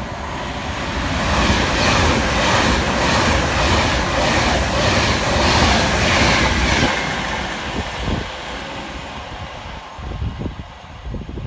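Avanti West Coast Class 390 Pendolino electric train passing through the station at speed without stopping: a loud rush of wheels on rail with a regular beat of wheelsets. It builds over the first couple of seconds and fades away after about seven seconds.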